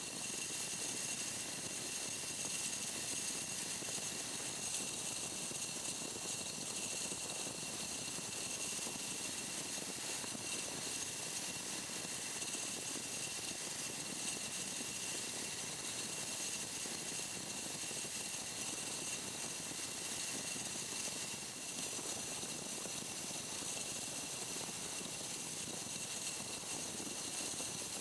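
A power tool running steadily, with a hiss and a thin high whine, switched on just as the sound begins.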